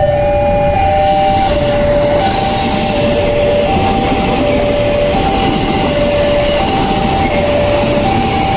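Level crossing alarm sounding a steady two-tone signal, high and low notes alternating, while a KRL commuter electric train passes close by. The train's running noise grows fuller about two seconds in as the cars go past.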